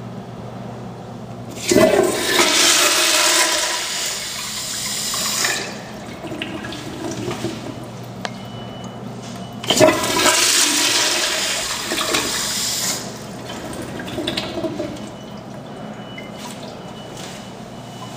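1980s Crane Placidus toilet flushing twice, once about two seconds in and again about ten seconds in. Each flush is a short rush of water lasting three to four seconds and starts abruptly.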